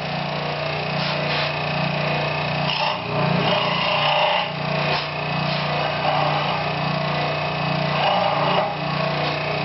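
A small power tool running steadily with a low motor hum, biting into wood twice in louder, rougher stretches, about three seconds in and again near the end, as small pieces are cut from a branch.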